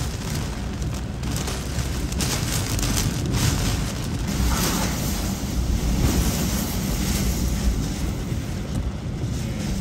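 Category 4 hurricane eyewall wind and driving rain heard from inside a car: a loud, continuous deep rush and rumble that surges in gusts, with rain lashing the windshield.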